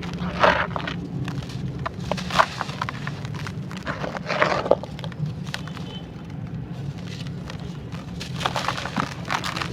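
Crunchy, grainy dried sand-clay crumbling and breaking apart in irregular crisp crunches, a few seconds apart, with a quick cluster near the end.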